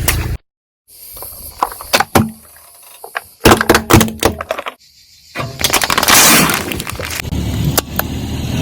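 Crunchy objects cracking and breaking under a car tyre, in clusters of sharp cracks about two seconds in and again between three and a half and four and a half seconds in. The sound cuts out completely for a moment near the start.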